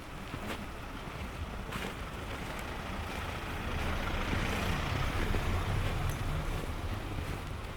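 A motor vehicle passing, its engine and tyre noise swelling to a peak about halfway through and then easing off.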